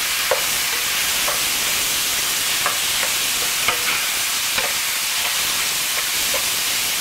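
Beef mince sizzling steadily as it browns in a frying pan with olive oil, with a spatula scraping and tapping against the pan every second or so as the meat is broken up and turned.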